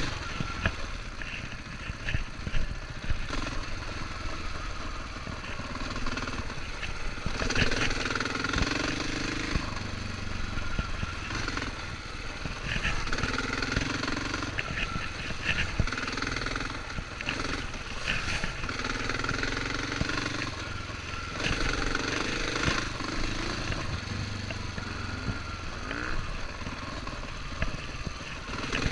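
KTM 450 dirt bike's single-cylinder four-stroke engine under way on a rough track, its revs rising and falling as the throttle is worked. Occasional knocks come through from the bike over the rough ground.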